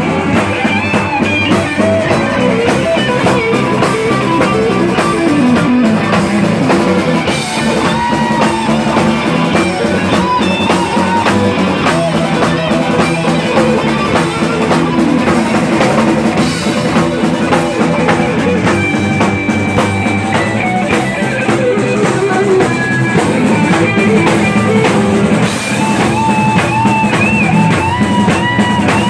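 Live rock band playing: an electric guitar lead with bending notes over drums and bass guitar.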